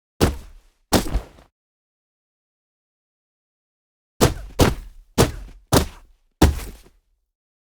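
Designed cinematic kick impact sound effects: seven separate hits, each a sharp whack with a deep thud underneath and a short tail. Two come close together near the start, then after a silence of nearly three seconds five follow in quick succession.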